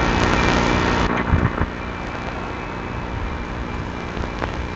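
Diesel locomotives of an approaching Union Pacific container train running, a steady low engine drone. The first second is louder and hissier, then the sound settles.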